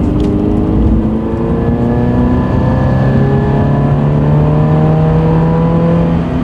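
Subaru BRZ's 2.0-litre flat-four engine heard from inside the cabin, its pitch rising steadily as the car accelerates in one gear. It is a light 3,000-to-6,000 rpm pull on a fresh E85 tune, run so the ECU can relearn its fuel trims.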